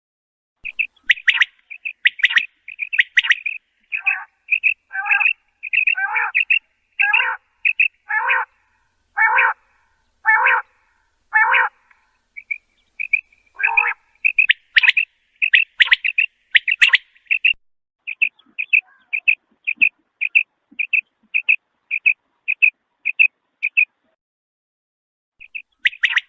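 Birds calling in a series of short, repeated chirps. For several seconds in the middle, longer calls come about once a second, each sweeping down in pitch. Later a steady run of short chirps comes about twice a second and stops shortly before the end.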